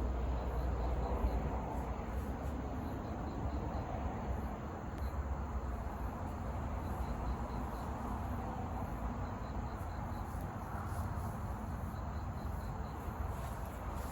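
Insects chirping steadily in a regular repeating pattern, over a continuous low rumble.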